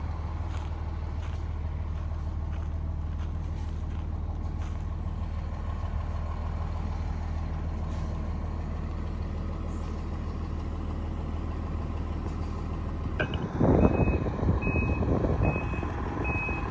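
Large RV's engine idling with a steady low hum. About three-quarters of the way in it grows louder as the vehicle starts backing up, and its reversing beeper sounds a steady beep a little more than once a second.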